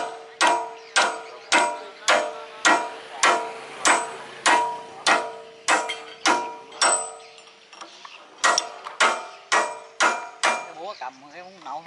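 Hammer striking a steel punch against the gland nut of a hydraulic bucket cylinder, driving it round to open the cylinder, whose worn seals leak oil. Sharp metallic clanks about twice a second, each with a short ring, with a brief pause a little past the middle before a few quicker blows.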